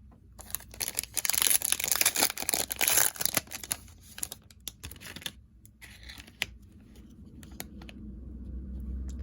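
A trading-card pack wrapper is torn open and crinkled for about three seconds, followed by softer clicks and rustles as the cards are handled.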